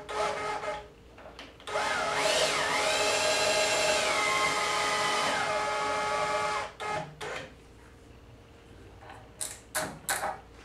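Cordless drill spinning the CNC router's Z-axis lead screw to drive the carriage along it: after a short burst, the motor whine rises as it speeds up, holds steady for a few seconds, then falls and stops. A few sharp clicks follow near the end.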